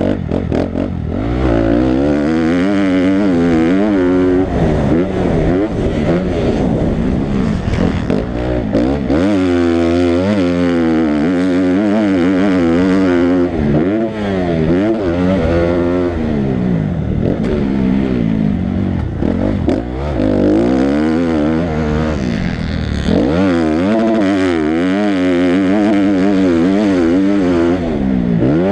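Dirt bike engine being ridden hard, revving up and dropping back again and again as the rider throttles and shifts through the gears.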